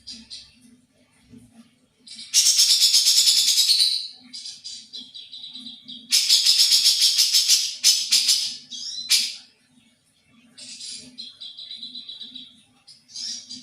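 A songbird singing: two loud, rapid rattling trills of about two seconds each, the first two seconds in and the second about six seconds in, with a thinner held high note and a few short sharp calls between them.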